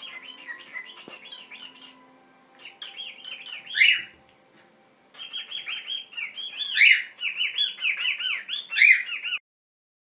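Cockatiel chattering in quick runs of high chirps, with a few louder calls among them; it pauses twice and stops suddenly near the end.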